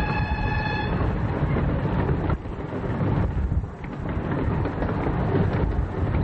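Low, steady rumble of a 15-inch gauge miniature railway train running, with wind buffeting the microphone. A steady pitched tone with several overtones cuts off about a second in.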